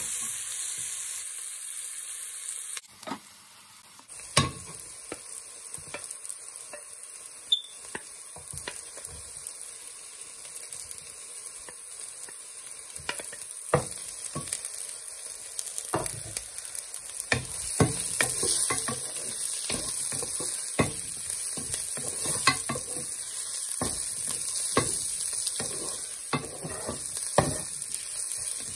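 Sliced red onion and green chillies sizzling in hot oil in a pan, with a wooden spoon stirring and knocking against the pan again and again. The sizzle drops briefly about three seconds in and is louder in the second half.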